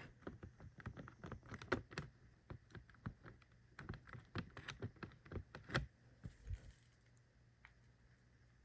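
Irregular light clicks and taps of hands handling small parts, dying away about six and a half seconds in.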